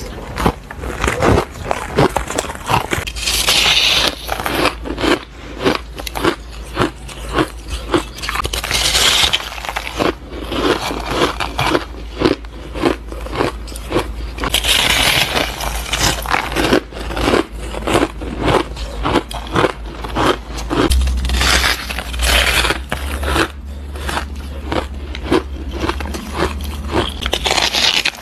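Close-miked biting and chewing of fluffy frozen ice: dense, crunchy crackling, a few crunches a second, with a few longer, hissier stretches.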